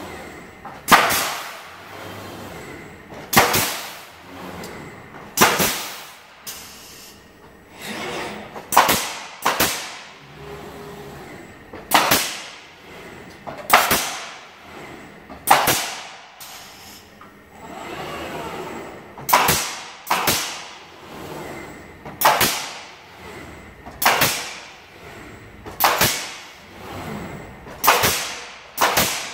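Pneumatic nailers on a framing robot's end tool firing into wooden frame joints: sharp bangs about every one to two seconds, some in quick pairs.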